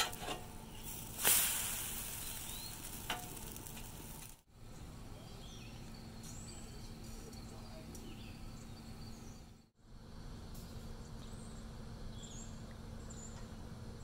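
Pancake batter sizzling on a hot flat-top griddle, with a metal spatula scraping under the pancake and the pancake flipped over about a second in, then steady sizzling.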